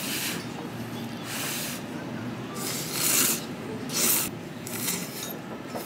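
Ramen noodles being slurped: about five short, hissing slurps a second or so apart.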